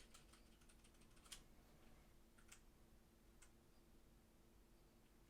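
Faint clicks of keys being pressed on a Keychron K3 low-profile keyboard with optical red switches: a quick run of presses in the first second and a half, then two single presses about a second apart.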